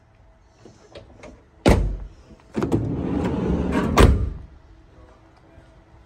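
VW Transporter van's sliding side door being pulled shut. It gives a loud clunk as it comes off its hold-open catch, rumbles along its track for about a second and a half, and slams as it latches about four seconds in.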